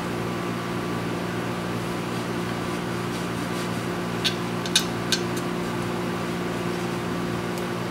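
A steady machine hum, with a few light clicks between four and five seconds in as a power cord is worked through a grommet in the fan's base plate.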